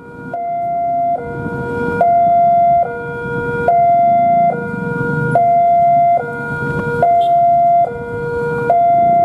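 A two-tone siren switching back and forth between a high and a low note, each held a little under a second. Beneath it runs a low rumble that fits the diesel locomotive pulling out.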